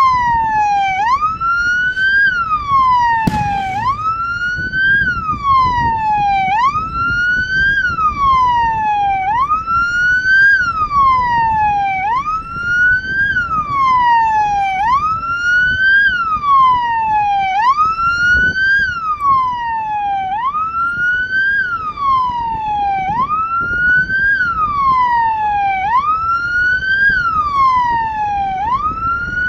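A vehicle siren wailing over and over, each cycle a quick rise in pitch and then a slower fall, about one cycle every two and a half seconds. A sharp knock sounds about three seconds in.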